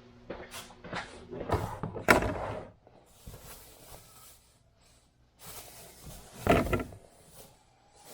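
Handling sounds as an inventory storage bin is pulled out and rummaged through: scattered knocks and rustling, a sharp knock about two seconds in and a louder clatter near the end.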